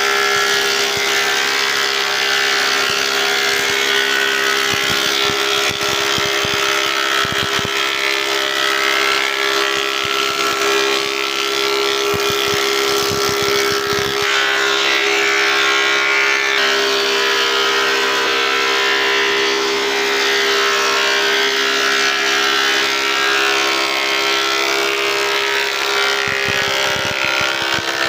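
Four-sided woodworking planer-moulder running steadily: a constant machine hum under a high hiss, with a few brief low knocks.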